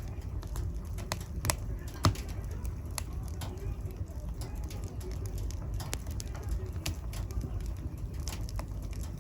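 Wood fire burning in a fireplace: a steady low rumble of flames with scattered sharp crackles and pops, the loudest about two seconds in.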